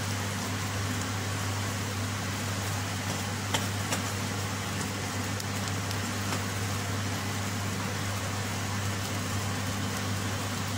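Steady low machine hum in a kitchen, even in level throughout, with a couple of faint light clicks about three and a half seconds in.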